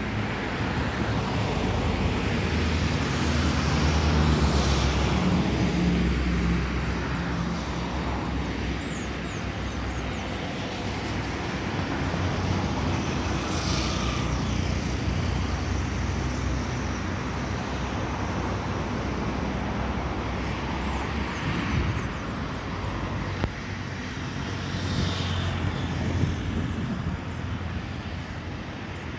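Road traffic going past close by: three vehicles pass with a rising and falling tyre-and-engine hiss, over a low engine hum that fades about two-thirds of the way through.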